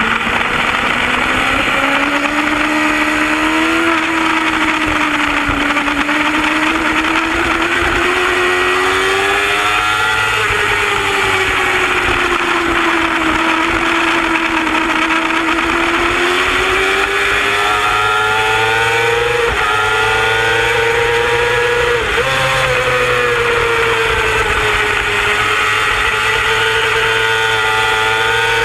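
Superbike's engine at racing speed, heard from a camera mounted on the bike, its pitch climbing and falling slowly as the throttle is worked through the corners, with two sharp breaks in the note in the latter part as the rider shifts or rolls off.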